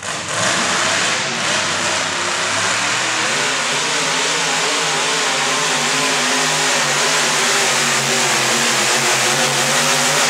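Modified 4x4 pulling truck's engine running hard and steady at high revs while it pulls the weight sled.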